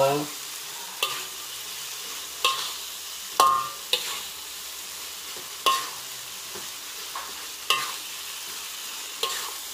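Beef in a thick dark sauce sizzling in a wok while a slotted metal spatula stirs it, scraping and knocking against the wok every second or two. One knock, about three and a half seconds in, rings briefly.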